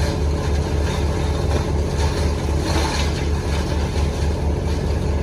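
Heavy storm rain and wind, a loud steady hiss over a low pulsing hum.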